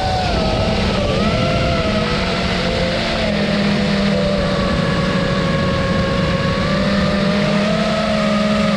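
FPV quadcopter's brushless motors and propellers whining steadily, heard from the on-board camera. The pitch dips about a second in with the throttle, then holds fairly level.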